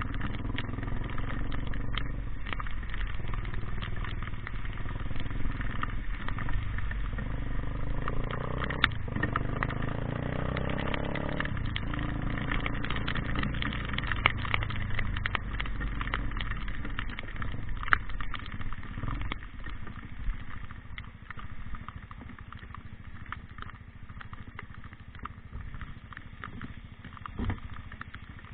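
A motor vehicle engine running steadily, its pitch shifting about eight to twelve seconds in, with scattered small clicks and crackles over it; it grows quieter in the last third.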